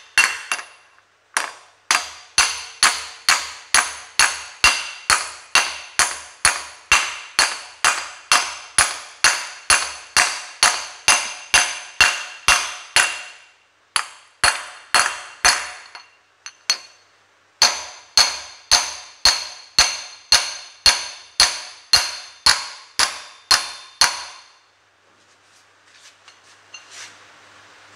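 Ball-pein hammer striking a flat metal plate in a steady series of ringing metallic blows, about two a second, with two short pauses and a stop about three seconds before the end. The blows drive the layshaft front bearing further into the Massey Ferguson 135 six-speed gearbox housing.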